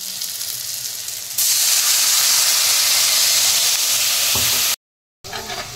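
Water poured into a hot kadhai of frying onion-tomato masala. A low sizzle jumps, about a second and a half in, to a loud, steady hissing sizzle as the water hits the hot pan and steams. It cuts off suddenly near the end.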